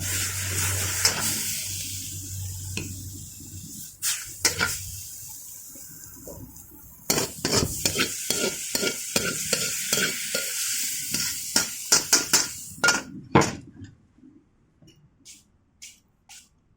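Stir-fry sizzling in a wok, the hiss fading, then a metal spatula scraping and knocking against the pan several times a second for about six seconds before it stops.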